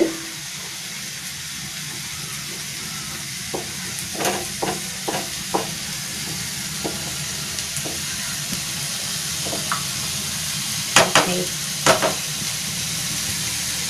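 Beaten egg sizzling in oil in a non-stick pan beside diced vegetables, frying on a medium flame with a steady hiss. A spatula scrapes through the egg with a few short strokes, then knocks sharply against the pan a couple of times near the end.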